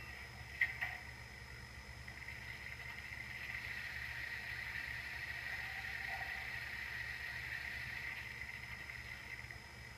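Sound from the Tsunami DCC sound decoder in a brass Sn3 K-27 model steam locomotive, played through its small speaker: a soft, steady steam hiss with no chuffing, swelling a little midway. Two short clicks come about half a second in.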